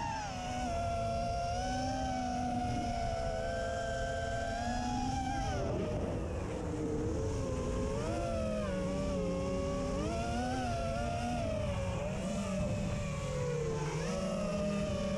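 An FPV racing quadcopter's DYS SE2205 brushless motors whine, the pitch rising and falling continually with the throttle, heard through the action camera mounted on the quad. A low rushing noise of wind and prop wash runs underneath.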